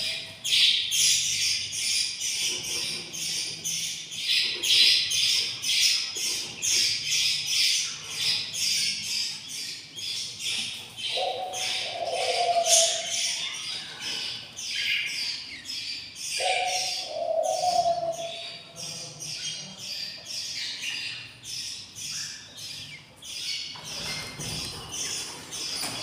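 Nestling budgerigars about 19 days old chirping in a continuous raspy chorus, several short chirps a second. Twice a lower call sounds underneath for about a second.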